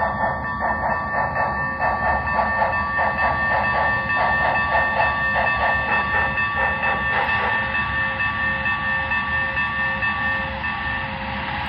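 Sound system of an HO scale Union Pacific Big Boy model steam locomotive: rhythmic exhaust chuffs, about four a second, that fade out about two-thirds of the way through, under a long, steady held whistle tone that ends near the end.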